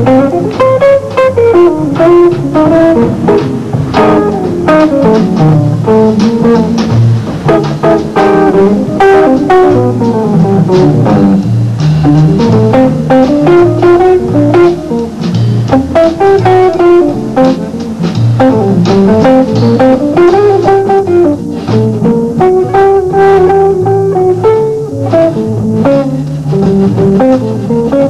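Instrumental music: a plucked guitar playing a wandering melody over bass guitar and drums.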